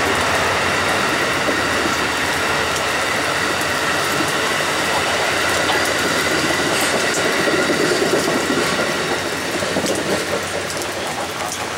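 Amtrak Superliner double-deck passenger cars rolling past on the rails in a steady rush of wheel and track noise, fading near the end as the last car goes by.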